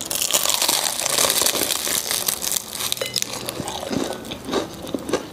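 Biting into a pistachio egg tart with a flaky croissant-pastry shell and chewing it, the crisp pastry layers crunching and crackling close to a clip-on microphone. The crunching is densest for the first few seconds, then thins to scattered crackles.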